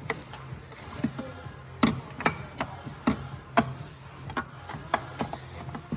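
Irregular sharp metal clinks and taps, about a dozen in a few seconds, from tools and parts being handled while a two-stroke snowmobile engine is taken apart, over low steady background music.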